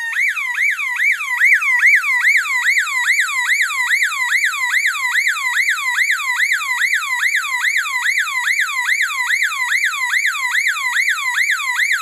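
Electronic alarm tone from a 555 timer oscillator driving a small loudspeaker with a cut-off water-bottle top as a horn, its pitch swept by a second, slow 555 on the control pin. A buzzy tone warbles steadily up and down, about three sweeps a second.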